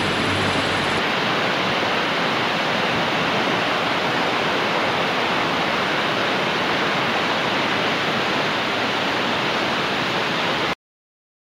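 Steady rush of a mountain torrent running high, an even roar of water that cuts off abruptly near the end.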